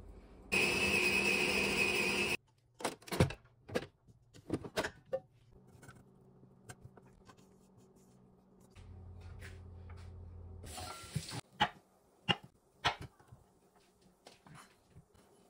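An electric mini food chopper runs loudly for about two seconds and cuts off sharply. Scattered knocks follow as a spatula scrapes the ground meat out of the chopper bowl. Near the end a knife gives sharp taps on a bamboo cutting board as it slices.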